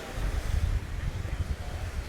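Wind buffeting the microphone in uneven gusts over the steady wash of ocean surf.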